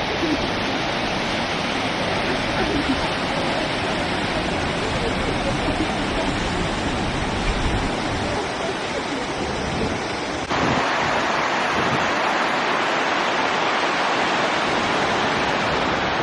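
Steady rush of Skógafoss waterfall. About ten and a half seconds in, the sound changes abruptly to a brighter, hissier rush.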